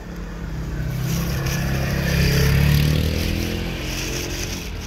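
A motor vehicle passing close by, its engine getting louder to a peak about halfway through and then fading away.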